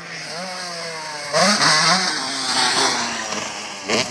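Motocross bike engine revving and rising in pitch as it accelerates along the track. It is loudest about a second and a half in, then fades, with a sharp knock near the end.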